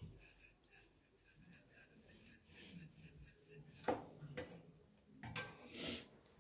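Faint kitchen handling noise: soft rubbing and scattered light clicks, with a sharper knock about four seconds in.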